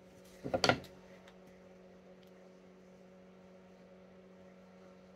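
A wooden stir stick briefly scrapes and smears Bondo body filler on a plywood board about half a second in, over a steady electrical hum.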